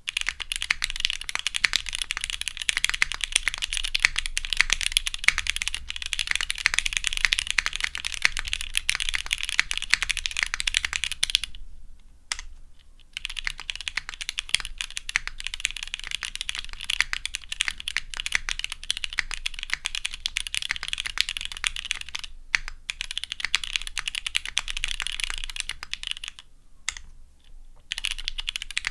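Typing on a Bowl IDK60 prototype mechanical keyboard with lubed and filmed Gateron CJ linear switches in Cherry top housings, TX 67 g long springs, GMK keycaps and a half carbon-fibre plate. A fast, dense run of keystrokes, then, after a short break about twelve seconds in, typing at a normal pace, with another brief pause near the end.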